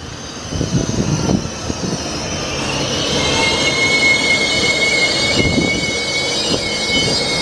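DB Class 102 (Škoda 109E) electric locomotive and its double-deck coaches running close past, wheels rumbling on the rails, growing louder. About three seconds in, a high-pitched wheel squeal sets in and holds, with short breaks, to the end.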